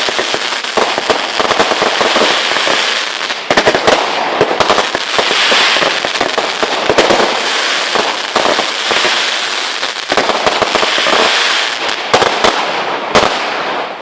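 Fireworks going off in a dense, continuous crackle of many small rapid bangs, with a couple of louder bangs near the end.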